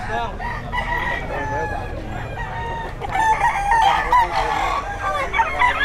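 Many roosters crowing and chickens clucking at once, their calls overlapping, busier and louder from about halfway through.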